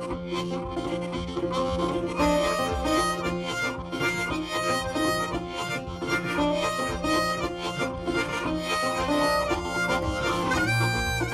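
Background music: an upbeat country-style tune with harmonica over guitar and a steady rhythm.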